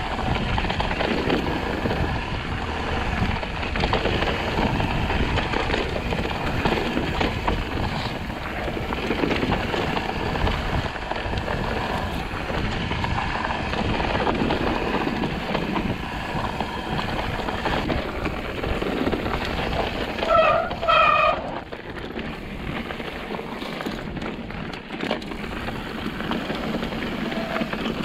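Mountain bike riding fast down a rough, loose dirt trail: a steady rush of wind on the camera microphone mixed with the rattle and crunch of tyres, suspension and frame over rocks and loose dirt. About two-thirds through, two short high-pitched squeals stand out, and the rumble eases for a few seconds after.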